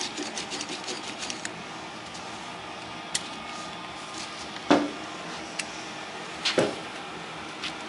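Light handling noises from the vacuum-actuator test gear: a quick run of small clicks, then a single click and two louder knocks, over a steady background hum.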